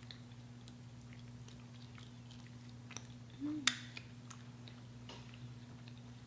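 Faint chewing and mouth noises of someone eating fried chicken, with small scattered clicks and one sharper click a little past the halfway point. A brief hummed "mm" comes just before that click, over a steady low hum.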